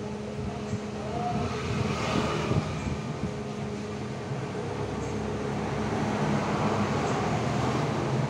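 Steady low mechanical rumble with a droning hum, like a running engine, growing slowly louder, with a few faint ticks.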